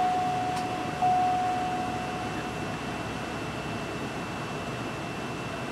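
A single-pitch electronic chime in a 2015 Cadillac SRX's cabin sounds twice, about a second apart at the start, and fades out over the next couple of seconds. Under it runs the car's steady hum.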